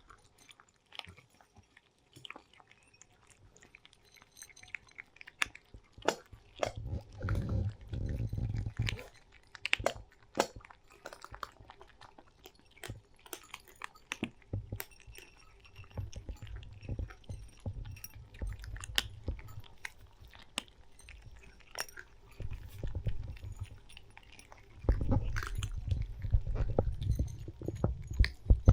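Cats chewing and crunching food, a steady patter of small sharp bites and clicks. Louder low rumbling comes in twice, about a quarter of the way in and again near the end.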